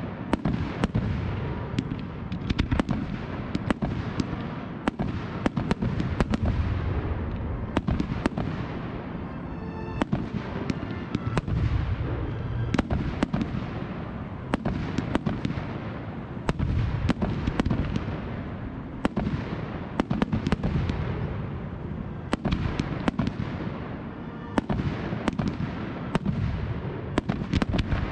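A fireworks display: aerial shells bursting one after another, many sharp bangs over a continuous crackle and low rumble.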